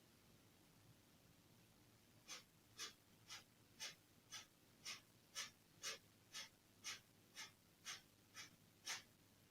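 Kapalabhati breathing: a rapid series of sharp, forceful exhalations snorted out through the nose, about two a second and fourteen in all, starting about two seconds in. Each puff is driven by a pump of the belly muscles, the air drawn back in passively between strokes.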